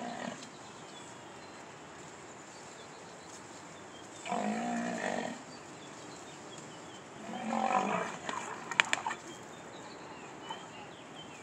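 White rhinoceros calling twice, two pitched calls about a second long and some three seconds apart, during an aggressive horn-to-horn standoff between two bulls contesting a female. A few sharp clicks come shortly after the second call.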